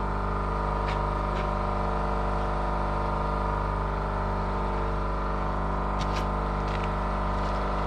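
A motor-driven machine running at a steady speed, a constant drone with a few faint light clicks about a second in and around six seconds in.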